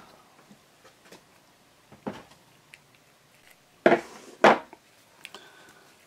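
Plastic casting-material bottle and measuring cup being handled and set down on a tabletop: a soft click about two seconds in, then two sharp knocks about half a second apart a little past halfway.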